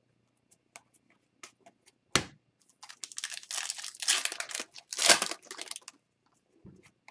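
Foil wrapper of an Upper Deck Series 2 hockey card pack being torn open and crinkled for about three seconds, with a few light clicks of cards being handled before it and a sharp knock about two seconds in.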